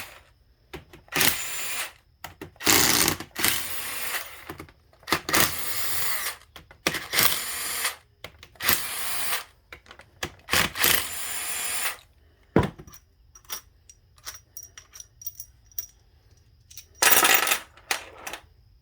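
Power tool run in about eight short bursts of roughly a second each, spinning out bolts as the front pump of a 4L65 automatic transmission is unbolted. Light clicks of metal parts follow, then one more burst near the end.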